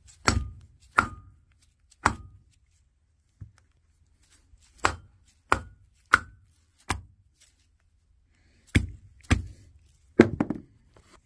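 A mallet tapping a new O-ring-sealed hydraulic piston down into the Ford 8N's lift cylinder: about ten sharp blows in irregular groups. Some blows leave a brief metallic ring.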